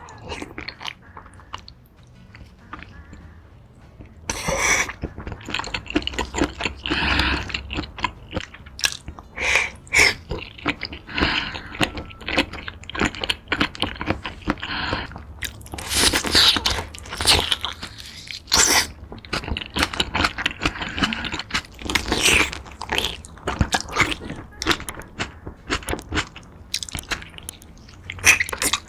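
Close-miked eating of a garlic butter seafood boil: irregular chewing and crunching with many short sharp clicks and wet noises, quieter for the first few seconds.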